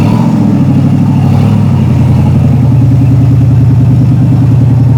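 V8 engine of an off-road Jeep running loudly at fairly steady low revs, with a close, even pulsing throb.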